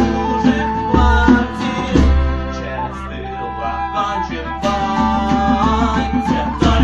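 Live acoustic band music: guitar with a deep bass beat and percussive strokes, the low beat dropping out briefly midway before coming back.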